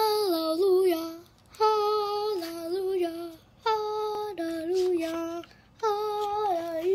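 A young child singing a short tune that falls in pitch over a few notes, sung four times over with brief pauses between.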